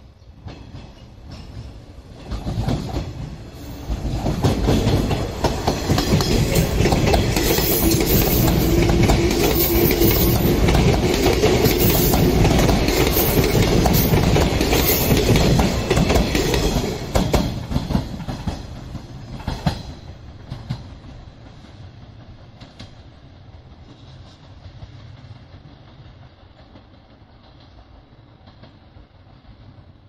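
A train passing close by, its wheels clicking over the rail joints. It builds over the first few seconds, stays loud for about twelve seconds, then fades away.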